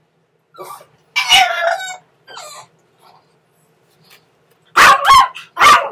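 Dogs barking and crying: a drawn-out, yelping cry about a second in, then a quick run of sharp, loud barks near the end. These are hospitalized dogs in their kennels calling out for attention.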